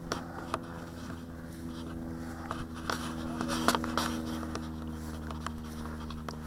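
Electric ducted fans of a radio-controlled Cessna 550 model jet running with a steady hum that swells slightly midway, with scattered sharp clicks and taps over it.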